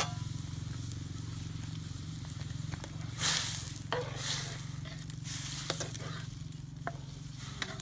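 Snake pieces and vegetables sizzling in a steel wok over a wood fire, with bursts of sizzling from about three seconds in as they are stirred, and a few sharp clicks of the spatula against the wok. A steady low hum runs underneath.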